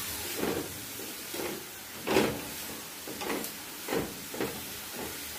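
Vegetables sautéing on low heat in a metal pot, with a faint steady sizzle. Tongs toss them, giving about half a dozen irregular scrapes and knocks against the pot.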